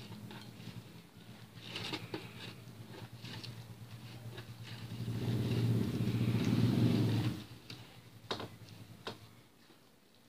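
Green silicone spatula stirring a thick grated-vegetable batter in a bowl, with light scrapes and two soft knocks near the end. In the middle a low hum swells for about three seconds, then fades.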